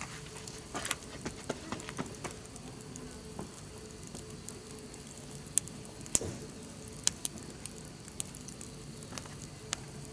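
Wood campfire crackling, with irregular sharp pops and snaps, the loudest a pair about five and a half and six seconds in.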